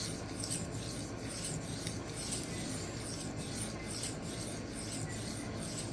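D2 steel knife blade stroked freehand across a 1x6 inch Xarilk resin-bonded diamond plate, a steady gritty scraping in quick repeated sweeps, about two a second. The edge is being ground down to remove extra steel and the burnt factory edge after a burr has been raised.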